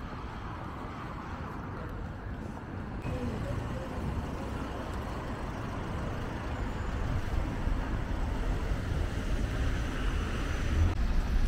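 Steady city street traffic noise: a continuous hiss over a low rumble, growing louder near the end.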